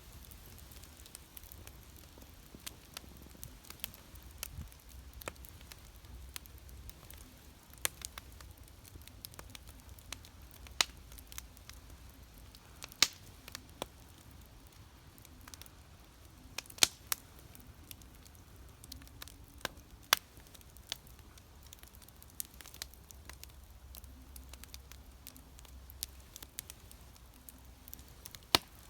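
Campfire crackling: irregular sharp pops and snaps over a faint low rumble, with a few louder pops scattered through.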